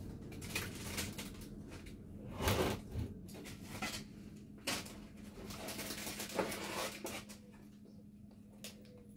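Scattered knocks, bumps and rustling of objects being moved and handled while a basket is fetched, the loudest bump about two and a half seconds in, over a faint steady hum.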